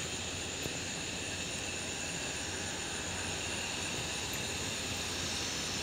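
Airbus A320 jet engines running with a steady, even hum-and-hiss on the runway ahead of take-off.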